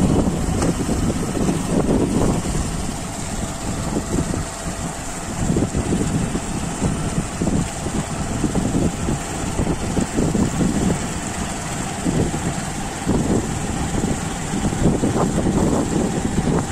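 Wind buffeting the microphone: a low, uneven rumble that gusts up and down every second or so.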